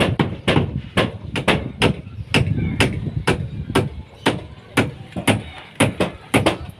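Hand hammer striking nails into wooden formwork planks, sharp blows about two a second, some coming in quick pairs.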